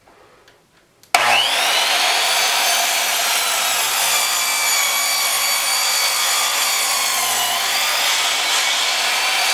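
Small-bladed power miter saw switched on about a second in, its motor whining up to speed and then running steadily as the blade is lowered into a roll of seamless background paper. The pitch sags slightly late on as the blade takes the load. The blade is too small to cut all the way through the roll.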